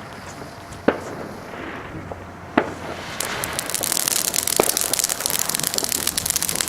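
Lit fuse of a Cobra 6 firecracker fizzing and crackling: a dense, sputtering hiss starts about three seconds in and keeps going, after a few sharp single clicks.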